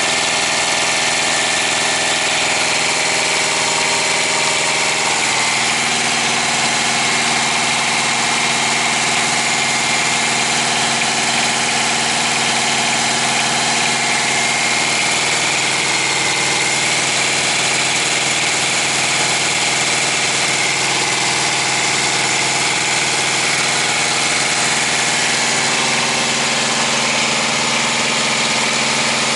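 A truck's auxiliary power unit (APU), a small diesel engine, running steadily at idle. Its tone changes slightly about five seconds in.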